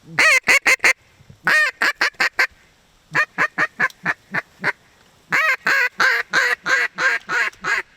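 Duck call blown in four strings of short quacks, each string five to a dozen notes long, calling to turn passing ducks back toward the hunters.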